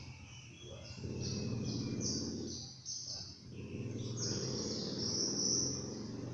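High chirping calls repeated in short runs, over a low engine-like rumble that swells twice.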